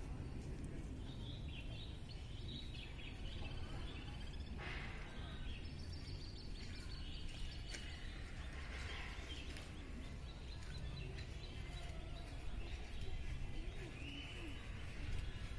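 Steady low outdoor background rumble, with faint bird chirps and calls scattered through.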